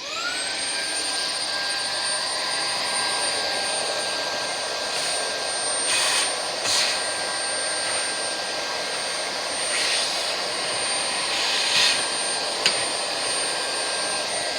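Small handheld electric cleaner spinning up with a rising whine, then running steadily with a high motor whine and rushing air, used to clean the inside of a smoke detector. The rushing air surges briefly a few times, and a single sharp click comes near the end.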